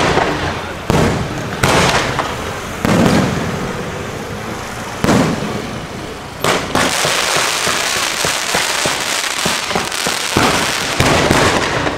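Aerial fireworks bursting with sharp bangs, about six in the first seven seconds. From about halfway on, a continuous crackling barrage of many small reports with a steady hiss, broken by a couple more bangs near the end.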